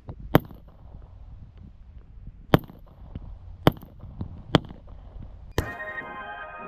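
Five gunshots, sharp single cracks spaced about one to two seconds apart. Music starts right on the last shot.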